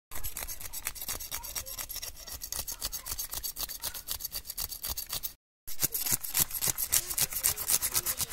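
Knife blade scraping the scales off a whole fish, in rapid rasping strokes several times a second, with a brief break about five and a half seconds in.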